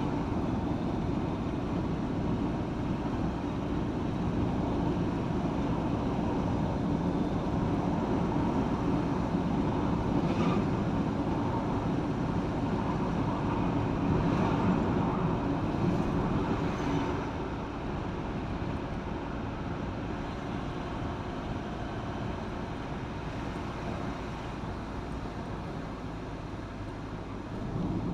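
Vehicle driving on a road: steady engine and tyre noise, dropping a little in level about two-thirds of the way through.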